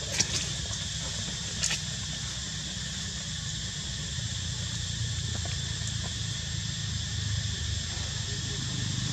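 Steady outdoor ambience: a high, even insect drone over a low rumble, with two short clicks in the first two seconds.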